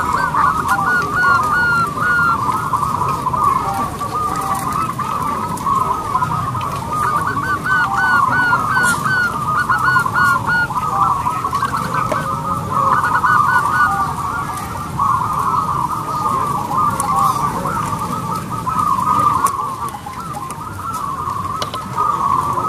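Zebra dove (perkutut) cooing: an unbroken run of short, quickly repeated staccato notes.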